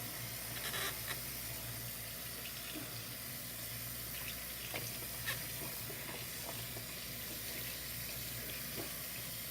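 Bathroom sink tap running steadily into the basin during a kitten's bath, with a few brief knocks.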